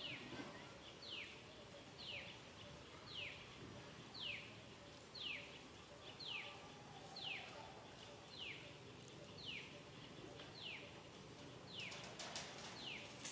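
A bird calling over and over, a short downward-sliding whistle about once a second, with a few faint clicks near the end.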